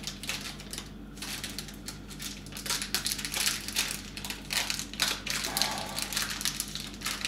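Small packet crinkling and crackling in the hands as it is handled and opened, an irregular run of rustles.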